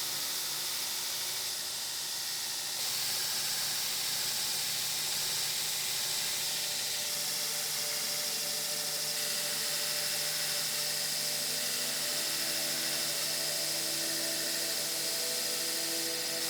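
Belt grinder running steadily while grinding a hardened 1095 steel knife blade flat and clean, a steady hiss with a whine that steps up in level about three seconds in.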